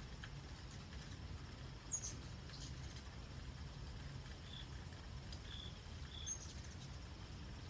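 Steady rain-and-outdoor background with a few short, high chips from a hummingbird in the second half. Two sharp ticks come, one about two seconds in and one near the end.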